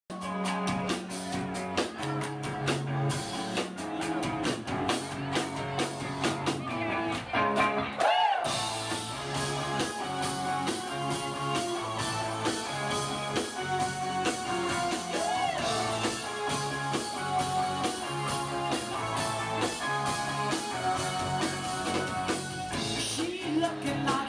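Live rock band playing: electric guitar, bass and drums on a steady beat, with vocals. The music breaks off for a moment about eight seconds in, then comes back in.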